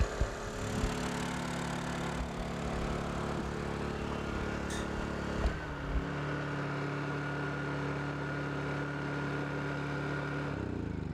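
Honda EU2000i single-cylinder four-stroke inverter generator running steadily under about 1500 W of load from a heat gun. Its note shifts about halfway through and falls away near the end as the engine slows.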